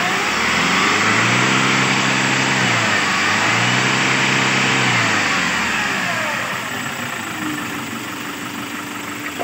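Kia K2500's D4CB 2.5-litre four-cylinder diesel running after a crank-no-start fault, now starting with the high-pressure fuel pump retimed. It is revved twice, rising and falling in pitch, then settles back toward idle about six seconds in.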